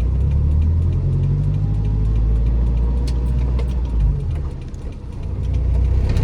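Car engine and road rumble while driving, a steady low drone that dips in level about five seconds in and then builds again.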